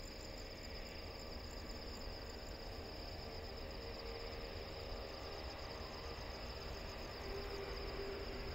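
Crickets chirping in a steady, pulsing chorus. Beneath them, the distant jet engines of an Airbus A330neo on the runway give a faint low rumble and hum that grows a little louder near the end.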